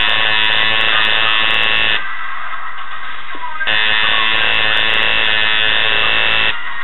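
Tattoo machine buzzing steadily as it runs, in two runs of about two and three seconds with a pause of under two seconds between them, over background music.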